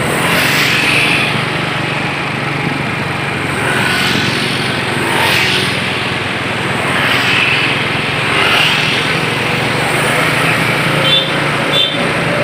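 Road traffic: engines running and vehicles passing one after another, each pass a swell of engine and tyre noise every second or two.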